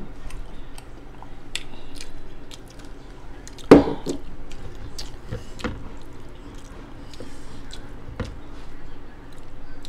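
Close-miked chewing and the wet squish of hands tearing meat off a whole chicken, with scattered small clicks and one loud knock about four seconds in.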